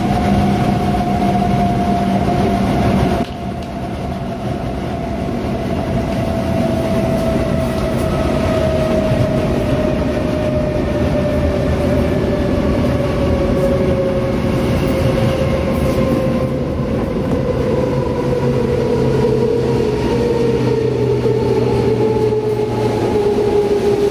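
Inside a DB class 420 S-Bahn electric train slowing toward a station: the traction motors' whine falls steadily in pitch over the running rumble of the wheels. About three seconds in, a low hum cuts out and the sound drops briefly before building back up.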